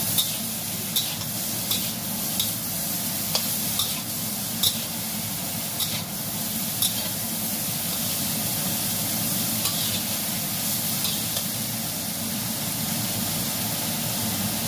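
Broccoli and shrimp sizzling in a stainless steel wok, stir-fried with a metal spatula that clacks against the pan about once a second for the first seven seconds, then only a few times.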